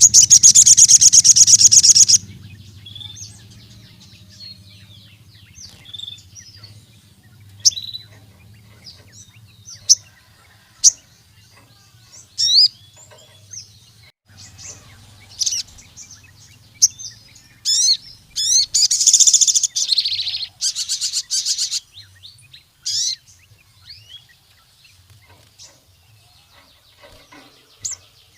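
A sogon sunbird singing: a loud, rapid, high-pitched trill at the start and another around two-thirds of the way through, with short sharp high chirps scattered in between. This is the full, active song that keepers play to rival sogon to get them singing.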